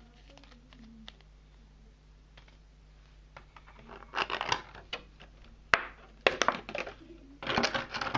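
Clear plastic packaging tray crackling and clicking as a small RC car chassis is pried out of it: faint clicks at first, then three loud bursts of crinkling in the second half with a sharp snap between them.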